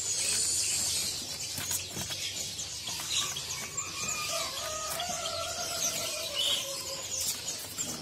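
Many caged songbirds chirping and twittering together, with short high notes throughout. A longer drawn-out call in the middle lasts about four seconds, rising slightly and then falling.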